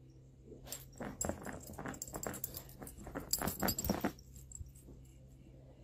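A dog scuffling close to the microphone, a dense run of rustles and clicks with its collar tags jangling, from about half a second in to about four seconds in.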